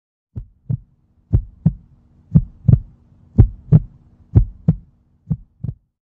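Heartbeat sound effect: six double thumps (lub-dub), about one a second. They grow louder toward the middle and fade again near the end.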